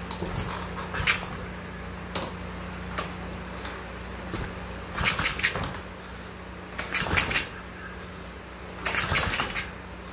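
Recoil pull-starter on an older choked Honda small engine being yanked again and again, every couple of seconds, cranking the engine over without it catching yet.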